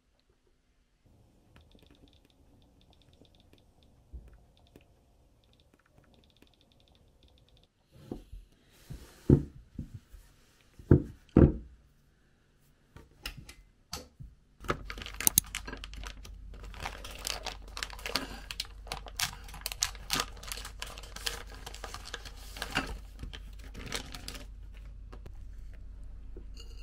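Close-up handling sounds: faint light tapping at first, a few loud knocks around the middle, then a steady low hum under dense clicking and rustling.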